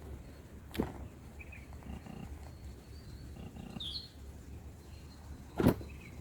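A few short, high bird chirps over a low outdoor rumble, with two sharp knocks, about a second in and near the end, the louder one near the end.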